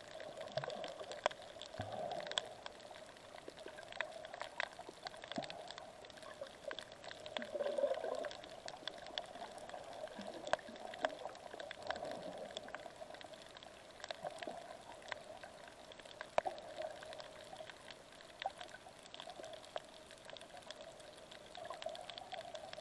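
Water moving and bubbling as heard by a camera underwater, with scattered sharp clicks throughout and a couple of louder swells.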